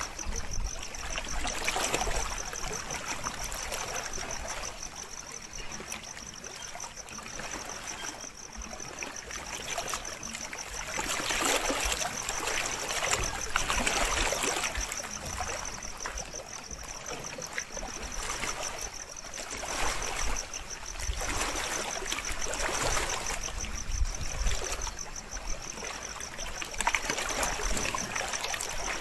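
Lake water lapping at the shore in small waves, swelling and easing every few seconds, under a steady high pulsing trill.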